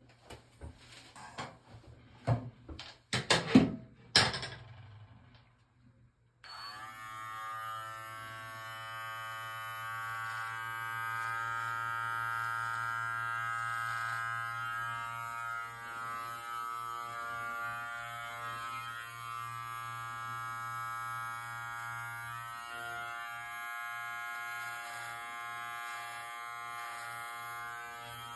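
A few handling clicks and knocks, then about six seconds in a Live Bearded MT-1 beard trimmer switches on and runs with a steady electric buzz as it trims the beard along the cheek.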